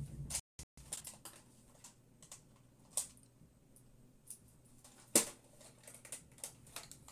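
Scattered small clicks and taps from handling a plastic HO-scale model caboose and small tools, with a sharper knock about three seconds in and the loudest one about five seconds in.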